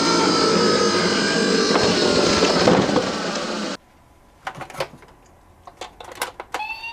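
Toy minicar emergency vehicles: a dense plastic clattering with faint siren tones that cuts off suddenly about four seconds in, followed by a run of sharp clicks and knocks of the toys being handled.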